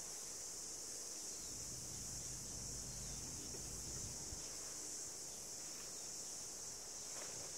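Steady high-pitched drone of an insect chorus outdoors, unbroken throughout.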